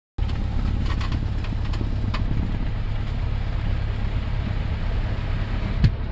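A Cessna 172's piston engine and propeller run with a steady, low drone, heard from inside the cabin. A brief thump near the end is the loudest moment.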